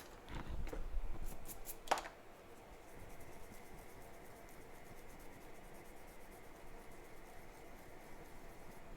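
Small hand tools clicking and scraping lightly on the board and work surface in the first two seconds, the sharpest click just before two seconds in, then only a steady faint hiss.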